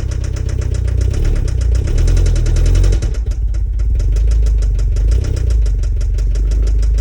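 Toyota MR2 Turbo's 3S-GTE turbocharged four-cylinder engine running, with a fast, even tapping over the engine note. It sounds like a motor tap, but the owner blames something that has come loose in the clutch.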